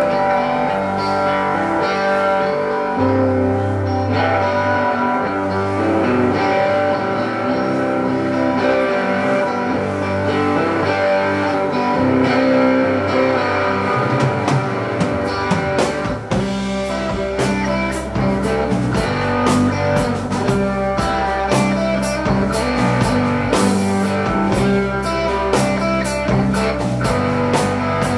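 Live rock band opening a song: guitar and bass first, then the drum kit comes in about halfway through and the full band plays on steadily.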